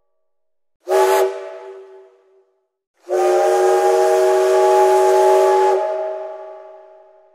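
Steam whistle blowing a chord of several steady notes over a hiss of steam: a short blast about a second in, then a long blast of a few seconds that fades away near the end.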